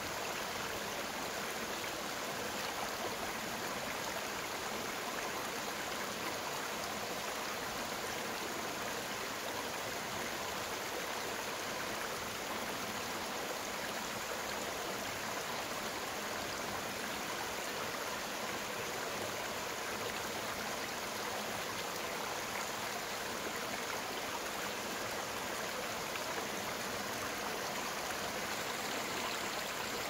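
Small stream spilling in a narrow cascade over rocks into a shallow pool: a steady, even rush of splashing water.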